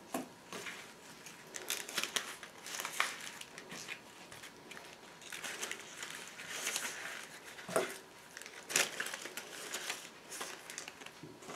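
Rustling and crinkling of leaves and stems as sprigs of holly and other greenery are handled and bound into a bouquet around a stick, with scattered light clicks from the twigs.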